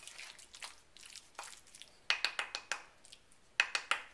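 Wooden spoon stirring and mashing chunky guacamole in a rough lava-stone molcajete, with soft squishing and quick runs of scraping clicks as the spoon rubs against the stone sides. The clicks come in two bunches, about two seconds in and again near the end.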